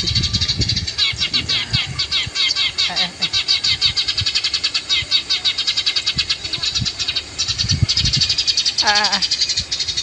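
Eurasian tree sparrows chirping in a rapid, unbroken stream of short high chirps, the sparrow call used as a lure to draw birds onto the lime sticks. About nine seconds in, a single drawn-out call falls steeply in pitch.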